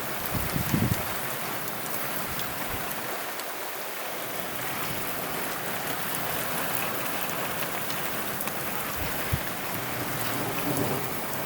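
Heavy rain falling steadily, a dense even hiss, with a brief low thump just under a second in and a short knock at about nine seconds.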